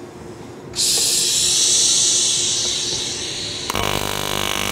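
AC TIG welding arc, set to about 50 Hz at around 100 amps, struck on a cast aluminum engine case about a second in: a steady hiss that turns into a harsher buzz near the end. The arc is agitating the dirty casting to float its impurities to the surface before filler is added.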